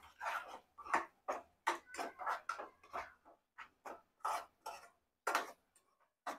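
Metal spatula scraping and stirring a thick onion, yogurt and cream masala around a metal pan while it is sautéed, in quick repeated strokes of about two to three a second.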